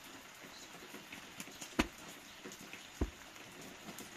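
Flatbread dough slapped onto the inside wall of a clay tandoor with a cloth-covered cushion: two soft thumps about a second apart, over a light patter of small clicks from the hot oven.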